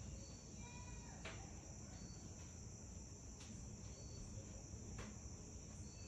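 Faint, steady high-pitched insect chorus, with a few soft short chirps and light clicks over it.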